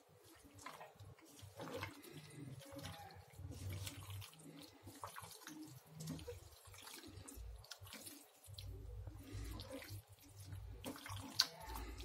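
A hand squishing and turning raw chicken pieces in a thick yogurt-and-spice marinade in a steel bowl: faint, irregular wet squelching.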